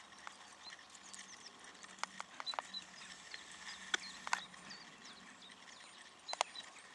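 Hooves of a walking horse on a sand arena, faint and irregular: scattered soft clicks and knocks, a quick run of them about two seconds in and single ones later.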